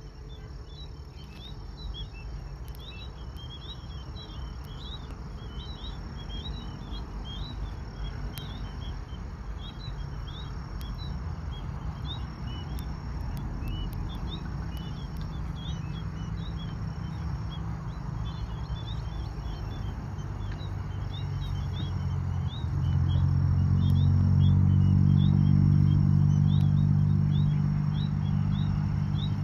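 Small birds chirping over and over in quick short notes, with a faint steady high insect-like tone. Underneath runs a low outdoor rumble that steps up and gets louder about two-thirds of the way through.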